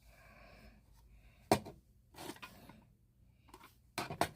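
Handling noise: a sharp click about a second and a half in, a brief rustle, then a few quick clicks near the end.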